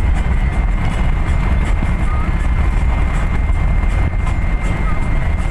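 Steady low rumble of a vehicle driving at highway speed: engine, tyre and wind noise heard from the moving vehicle.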